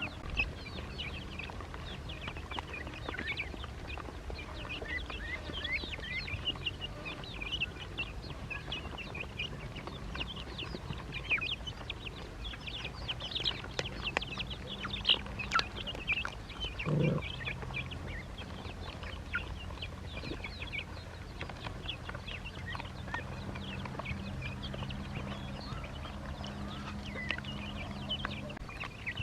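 A group of ducklings peeping continuously in rapid, high chirps, with one louder, lower call about 17 seconds in. A steady low hum sits underneath.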